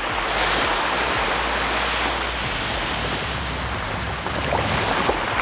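Small surf waves washing steadily onto a sandy beach.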